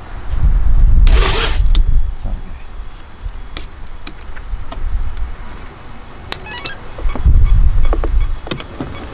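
Hands plugging LiPo battery leads into an RC model airliner's battery bay: scattered plastic clicks and rustling, with a short hissing rush about a second in. Wind rumbles on the microphone in two gusts, near the start and again near the end.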